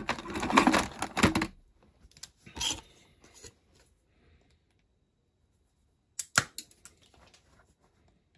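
Dense crackling clicks for about a second and a half, a short burst, then a few sharp clicks near the end: small parts of a diecast model car being handled and worked with hand tools on a cutting mat.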